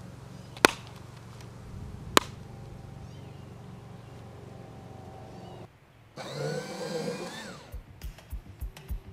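A steady low hum with two sharp clicks, then an abrupt cut about six seconds in to music, which picks up a steady beat near the end.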